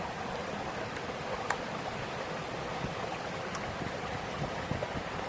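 Steady rushing outdoor noise, with a few faint sharp clicks about a second and a half in and again after three and a half seconds.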